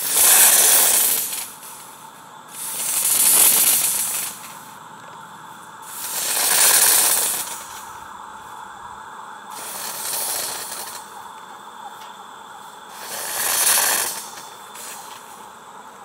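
Propane fogger puffing vaporised oxalic acid solution into a beehive entrance against varroa mites: five hissing bursts of fog, each about a second and a half long and roughly three seconds apart, as the pump is worked. They sound over the steady hiss of the fogger's lit burner.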